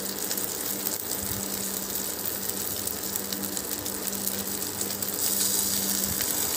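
Boiled eggs in onion-tomato masala sizzling in mustard oil in a frying pan, with light scraping clicks of a spatula turning them. The sizzle gets louder about five seconds in.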